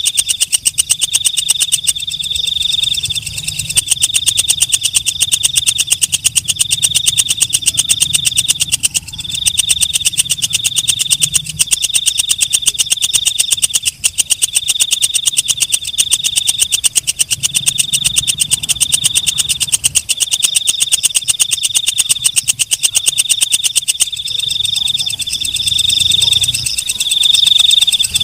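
Walang kecek, a green leaf-like katydid, calling: a fast, high-pitched buzzing trill in phrases of one to two seconds with brief breaks between them, going on steadily. A faint low hum lies underneath.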